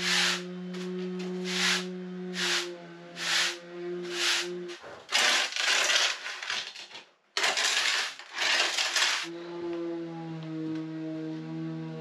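Trowel scraping and spreading hemp lime plaster on a wall: rasping strokes about once a second, then near-continuous scraping, with a brief dropout a little past seven seconds. A sustained musical drone plays underneath.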